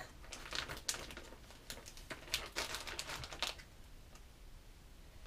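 Clear plastic zip-top pouch of a worm binder being handled and pressed shut: faint crinkling of plastic with quick small clicks, mostly in the first three and a half seconds, then quieter.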